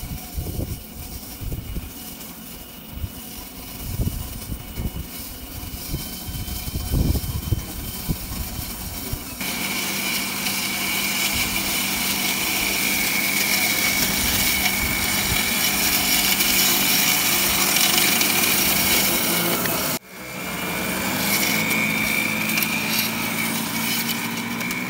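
High, steady whine of a radio-controlled scale MB trac's motors and front mower running as it cuts tall grass. For the first stretch it is fainter under irregular low rumbles of wind on the microphone. About ten seconds in it becomes louder and steadier, then breaks off suddenly near twenty seconds and picks up again.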